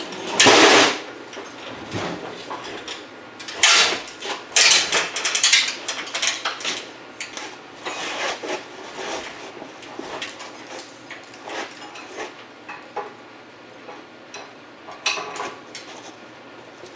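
Irregular metal clanks, knocks and rattles as an engine and transmission hanging from a shop crane's chain are pushed and lowered into a car's engine bay, with clusters of louder clatter a few times.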